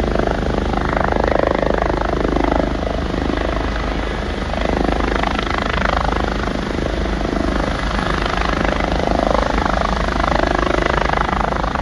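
Airbus H145 twin-turbine helicopter hovering low, its engines and rotor running steadily and loud, the level swelling and easing gently.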